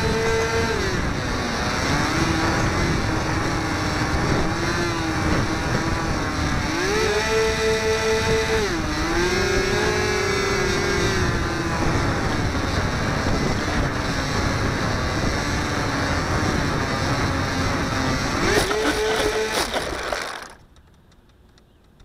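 Electric motor and propeller of a HobbyZone Firebird Delta Ray RC plane whining, heard from its onboard camera with wind noise over it. The pitch steps down, climbs again about seven seconds in and falls, rises briefly near the end, then cuts off about twenty seconds in as the plane comes down on the grass.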